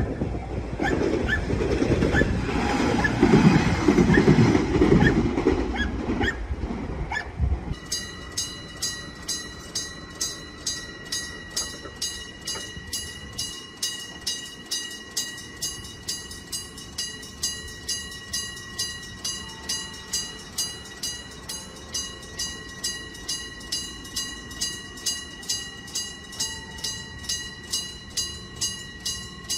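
A train passing close by, a loud rumble with wheel clatter that is loudest a few seconds in. At about seven and a half seconds it gives way abruptly to a Japanese railroad crossing warning bell ringing a steady 'kan-kan', about two strokes a second.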